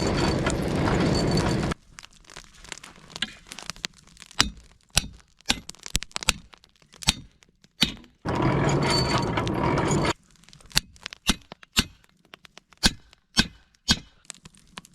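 Irregular sharp cracks and snaps, about one or two a second, broken twice by a couple of seconds of steady rushing noise, once at the start and once about eight seconds in.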